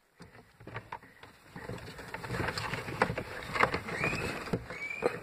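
Handling noise of a pleated cabin air filter and its plastic housing being pushed and shifted by hand: scattered clicks, taps and rustling, with two short squeaks about four and five seconds in.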